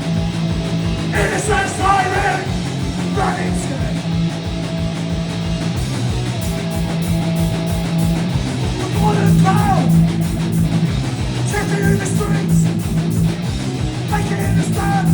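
Live punk hardcore band playing fast and loud: distorted electric guitars, bass and rapid drums, with shouted vocals breaking in a few times.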